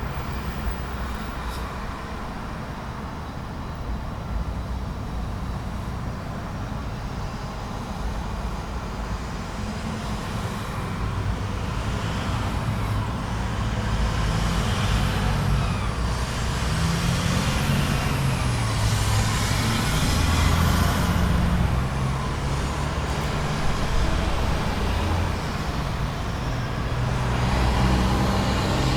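Busy intersection traffic: cars, trucks and buses passing and pulling away, with the low rumble of heavy engines building up about halfway through.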